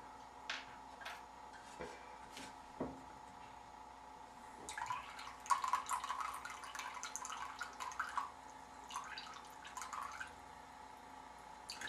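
Water dripping and splashing in a filled bathroom sink as a small tin pop-pop boat is handled in it, with a few light clicks and knocks; it is busiest from about five to ten seconds in.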